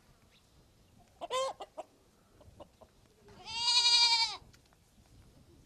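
Chickens: a short rising call about a second in, then a rooster crowing once, a single long held call of about a second, the loudest sound here.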